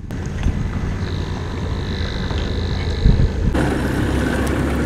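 Pickup truck engine idling with a steady low rumble. About three and a half seconds in, it cuts to a motorboat underway: the motor running under wind noise on the microphone.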